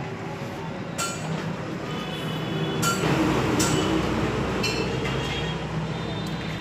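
Light metallic clinks as a steel head gasket is handled and laid onto the engine block, over a steady background engine hum that swells louder about halfway through.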